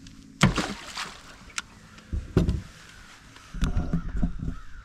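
A loud knock and clatter in a fishing boat about half a second in, followed by scattered knocks and rattles and a longer stretch of handling noise near the end.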